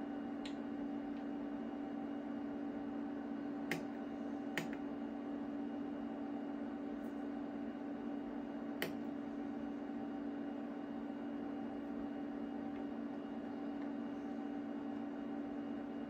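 Steady hum from a rack of running HP microwave test instruments, with a few short sharp clicks from their front-panel keys being pressed, the clearest three within about five seconds around the middle.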